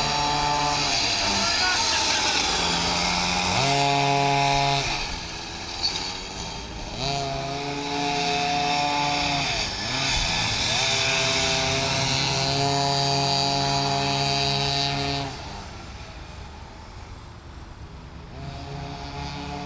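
Small two-stroke pocket bike engines revving hard, holding a high buzzing pitch in long pulls with brief dips where the throttle is eased. About three-quarters of the way through the sound drops away as the bikes move off into the distance.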